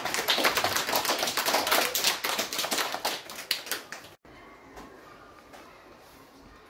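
A small audience applauding, a dense patter of many quick claps that cuts off suddenly about four seconds in, leaving quiet room tone.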